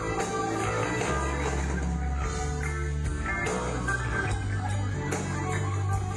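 A live rock band playing, with guitars over a bass line whose low notes change about once a second.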